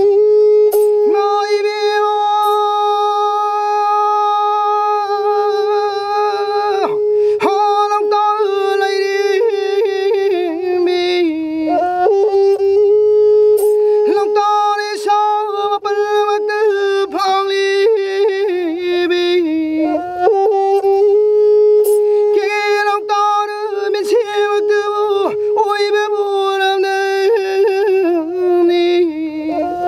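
Pena, the Manipuri bowed fiddle of bamboo and coconut shell, playing a melody built on one long held note that wavers and dips in pitch several times.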